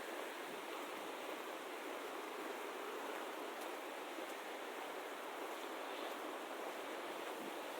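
Steady rushing outdoor noise, even throughout with no distinct events, of the kind made by flowing water or wind.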